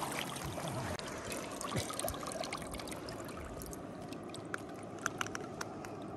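Water pouring and dripping off a large rainbow trout lifted out of shallow river water: scattered sharp drips over a steady wash of water.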